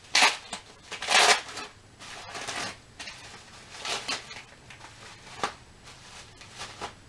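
Plastic packaging and bubble wrap crinkling and rustling as they are handled, in irregular bursts, loudest in the first second or so.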